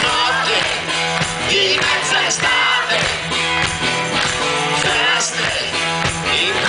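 Live rock band playing, with acoustic and electric guitars, bass, drums and percussion under singing voices.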